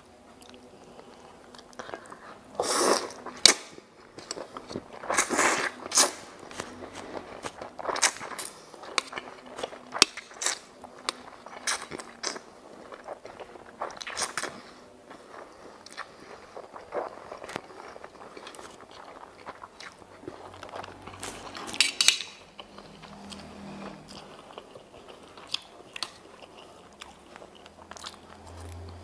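A person eating chicken noodles (mie ayam): noodles slurped in a few longer noisy draws, near three seconds in, around five to six seconds and just before twenty-two seconds, between steady close-up chewing with many short wet clicks.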